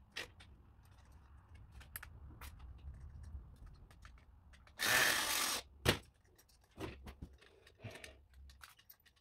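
Cordless drill-driver running in one short burst of just under a second, about five seconds in, as a screw is driven out of the photocopier's plastic frame. A sharp click follows, with light clicks and taps of parts being handled around it.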